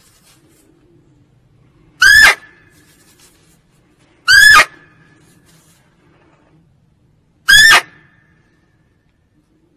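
Female muntjac (kijang) barking: three short, high, loud barks a couple of seconds apart, each rising then falling in pitch.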